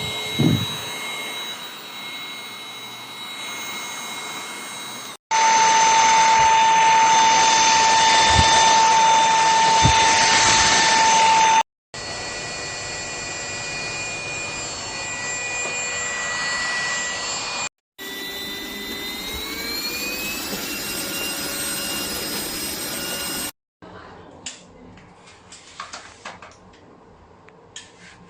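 Cordless vacuum cleaner motor running with a steady high whine, in several separate runs that start and stop abruptly. In one run the whine rises in pitch as the motor speeds up. The last run is quieter, with scattered clicks.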